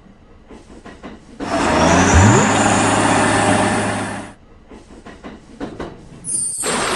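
A train rushing past for about three seconds, a loud whoosh with a rising low tone under it. About six seconds in, a second train sound starts with a high whine on top.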